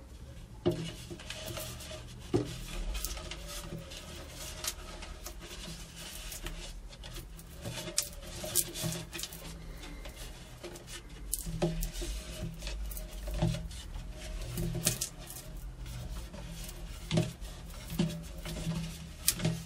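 Plastic subwoofer port tube being rolled and pressed in wet epoxy on a plywood scrap: rubbing and scraping, with scattered light knocks and clicks of plastic against the wood.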